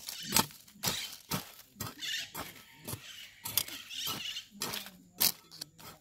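Mattock (grub hoe) blade tip chopping into loose garden soil, striking about twice a second in an uneven rhythm as the earth is loosened.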